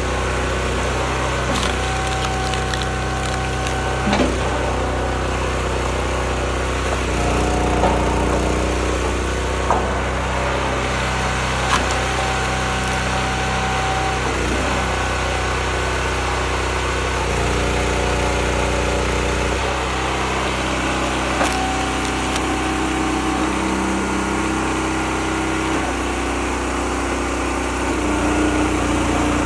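Homemade hydraulic log splitter's engine running steadily, its tone shifting every few seconds as the ram works through oak. Several sharp cracks of the oak splitting stand out over it.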